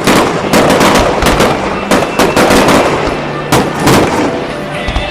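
Fireworks going off: a rapid series of about a dozen loud bangs with crackling between them, thinning out near the end.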